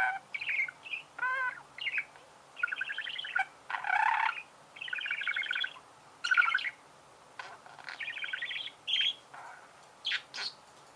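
Budgerigars chirping and warbling in short, buzzy chattering phrases with brief pauses between them.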